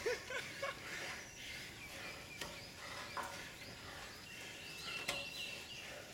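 Faint scuffling and knocks of people grappling on a steel climbing frame, with short strained grunts at the start and a thin high whistle-like tone about four seconds in.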